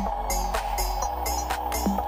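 Electronic background music with a steady beat, about two drum hits a second.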